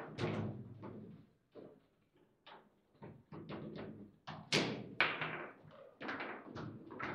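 Table football game in play: the ball cracking off the players' figures and the table walls, and rods knocking against their stops, in a run of sharp, irregular knocks. The two hardest strikes come close together just past the middle.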